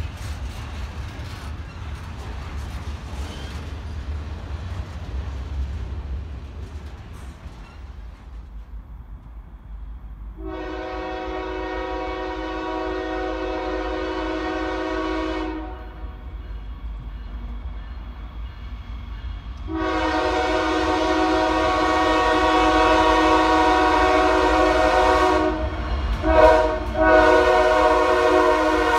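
Freight cars rolling past with a steady low rumble, then a diesel locomotive air horn sounding: one long blast of about five seconds, a pause, then a longer blast broken twice by brief gaps.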